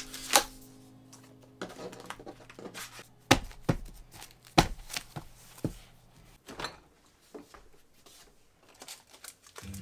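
Sheets of cut white paper being handled and stacked on a desk: soft rustling broken by several sharp knocks and taps, the loudest a little after the start and about three and four and a half seconds in.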